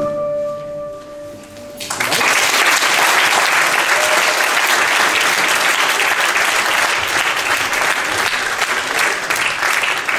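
Live folk-dance music ends on a held final note, and about two seconds in an audience breaks into steady applause, with one person clapping close by.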